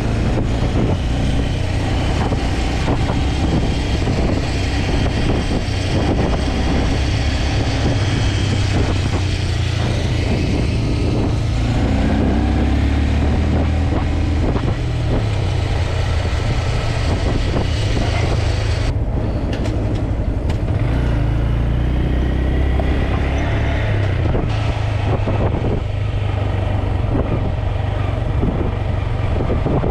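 Steady, loud wind rumble on the microphone and road noise while riding a small motorcycle along a city street.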